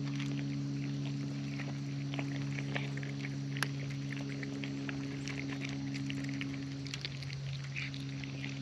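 A cat eating, with many small wet chewing and licking clicks. A steady low electrical hum runs underneath.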